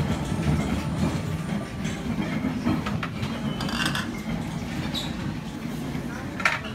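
Busy buffet dining room din: a steady low hubbub of many voices with a few light clinks of dishes or utensils.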